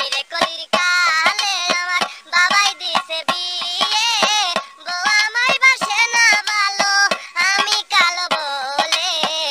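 A Bangla comic song playing: a high-pitched voice sings a wavering melody over a steady drum beat.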